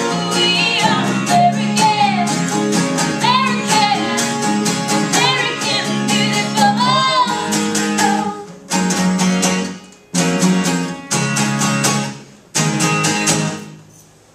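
Live country song with a woman singing over strummed acoustic guitars. The vocal ends about halfway through, and the song closes with four separate strummed chords that each ring and fade, with short pauses between them.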